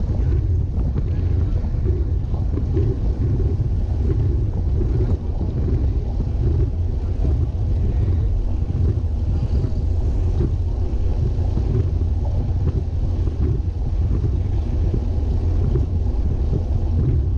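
Wind buffeting on the microphone of a bike-mounted action camera riding at about 30 km/h, a steady low rumble.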